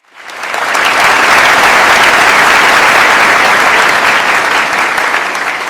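Sustained applause from a large audience, swelling in over the first second, holding steady, then thinning toward the end.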